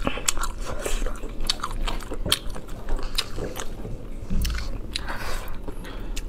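A person biting and chewing sour-and-spicy chicken feet, with irregular wet crunches and mouth clicks.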